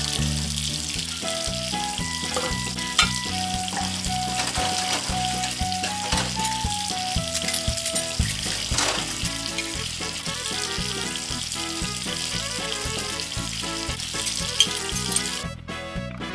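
Steady hiss of running tap water while a small metal toy frying pan and utensils are washed in a miniature sink, with a few sharp clinks of the metal pieces. Light background music with a simple melody plays throughout; the hiss stops about a second before the end.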